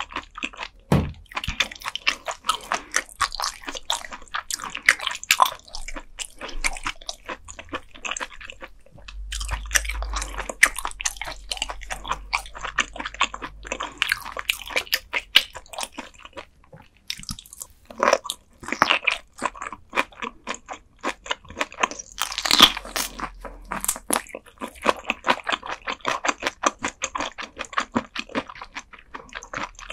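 Close-miked chewing and crunching of raw gizzard shad sashimi, eaten bones and all; the small soft bones crunch between the teeth. Dense, continuous crunching with a short pause a little past halfway.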